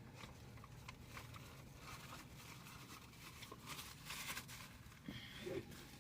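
Faint eating sounds from a person eating a sandwich: soft clicks and mouth noises, with a brief crinkling rustle about four seconds in.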